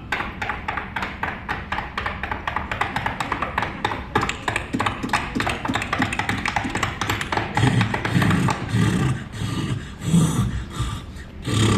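Sound-effect imitation of a galloping horse's hooves: a quick, even run of clopping knocks, several a second.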